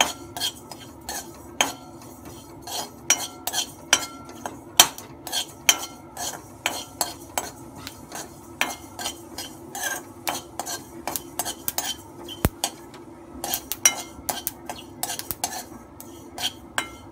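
Metal spoon scraping and clinking against a metal kadhai as sesame seeds are stirred while dry-roasting, in frequent irregular clinks.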